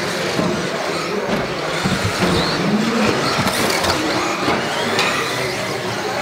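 Several 1/10 electric 4WD RC buggies racing on a carpet track: the electric motors whine, rising and falling in pitch as the cars accelerate and brake, over tyre noise, with a few sharp clicks of cars landing off jumps or knocking the track boards.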